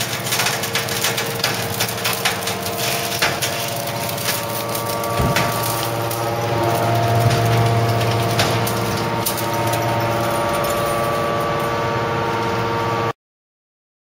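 Hydraulic baler's pump running with a steady hum while the ram pushes a compressed bale of mattress springs out of the chamber, the steel spring wire crackling and clicking as it scrapes along. The sound cuts off abruptly near the end.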